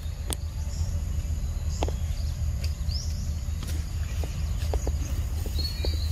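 A macaque eating a ripe mango: scattered wet clicks and smacks of chewing, over a steady low rumble, with a couple of short high chirps near the middle and the end.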